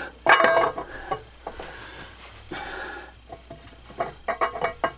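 Cummins ISX single-cam camshaft being slid by hand out of its bore, its lobes and journals scraping and knocking against the cam bearings and block: a loud scrape about half a second in, then a run of quick knocks near the end.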